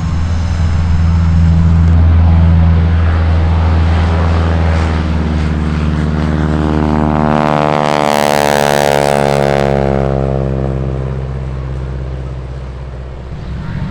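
Piston-engined propeller aircraft flying low past. The engine note builds to its loudest about eight seconds in, drops in pitch as it goes by, then fades away.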